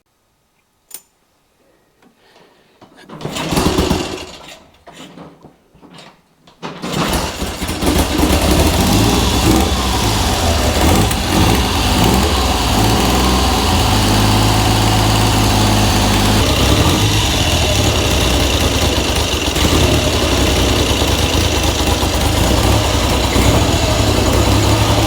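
1969 Triumph Trident three-cylinder engine being started: two short turn-over attempts, then it catches at about seven seconds and settles into a steady run. It is being started to balance its three carburettors on vacuum gauges after the mixture screws were reset.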